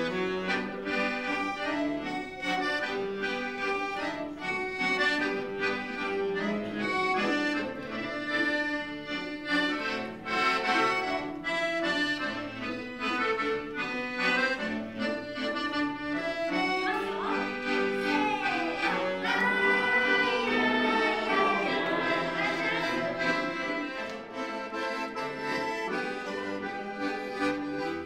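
Excelsior piano accordion played solo: a melody over held chords, the notes sustained and overlapping, with a passage of wavering notes about two-thirds of the way through.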